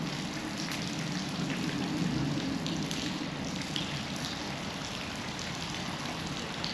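Steady rush of flowing river water, with faint scattered ticks and pops.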